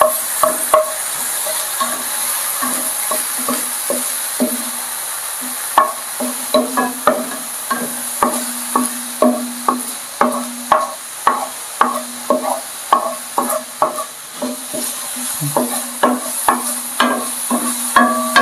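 Shrimp, onion, garlic and chilli sizzling in oil in a nonstick frying pan while a wooden spatula stirs them. The spatula knocks and scrapes the pan, only now and then in the first few seconds and then about twice a second, each knock leaving a short ring from the pan.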